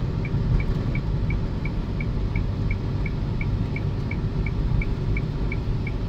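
Car interior noise while driving on a concrete expressway ramp: a steady low rumble of tyres and engine. A faint high tick repeats about three times a second.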